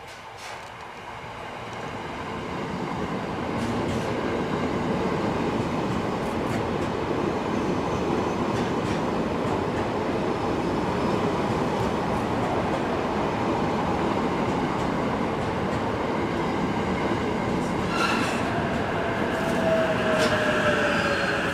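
E353 series electric limited-express train running alongside the platform: its rolling noise builds over the first few seconds and then holds steady. Near the end a falling motor whine comes in, along with high squealing tones from the wheels or brakes.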